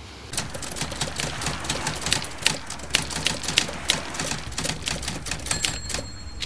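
Typewriter sound effect: rapid, irregular key-strike clicks, several a second, with a high ringing tone near the end.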